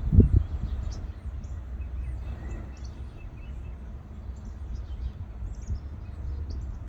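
Faint, scattered chirps of small birds over a steady low outdoor rumble, with a louder low burst just after the start.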